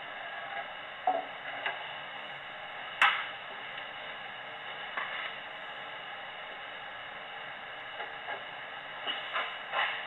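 Steady hiss of the recording's noise floor, with a few light clicks and knocks scattered through it, the sharpest about three seconds in.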